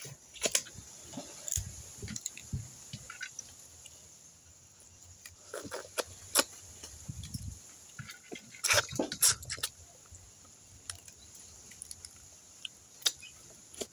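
Crabs being eaten by hand: irregular cracks and clicks of shells being broken open, with chewing in between, busiest about nine seconds in.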